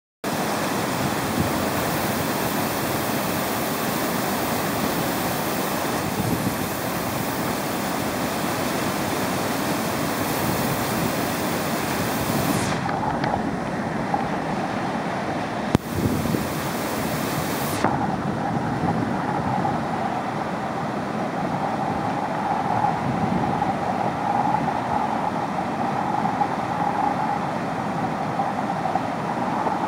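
Steady rushing noise of whitewater rapids on the Ottawa River, a big standing wave breaking continuously. It turns duller about a dozen seconds in, and there is a single sharp click about halfway.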